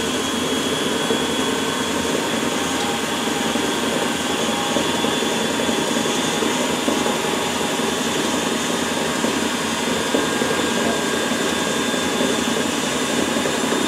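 KitchenAid stand mixer running steadily at high speed, its paddle beating butter and sugar in the metal bowl: creaming them until light and fluffy.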